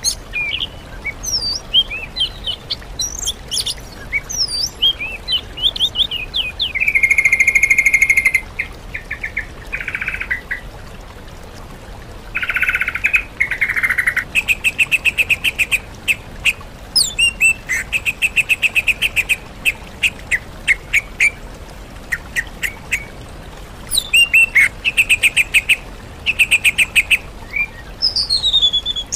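Sooty-headed bulbul song combined with oriental magpie-robin and greater green leafbird song on a bird-training track. It opens with varied quick chirps and whistled phrases, has a few harsher, raspy notes in the middle, and goes into long runs of fast repeated notes over the second half.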